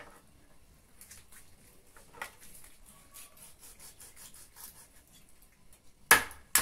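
Kitchen knife cutting and scraping through a raw chicken on a wooden board, faint rasping strokes. About six seconds in, two loud chops, half a second apart, as the knife comes down through the carcass onto the board to free the breast.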